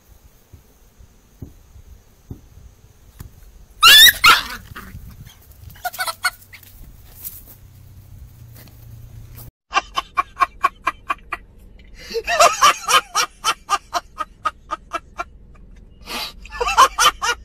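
A chicken squawks loudly with a falling call about four seconds in, then calls again more briefly. In the second half come long runs of rapid, rhythmic vocal pulses, about five a second.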